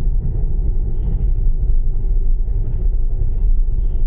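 Steady low rumble of a car's engine and tyres, heard from inside the moving car, with two brief hisses, about a second in and near the end.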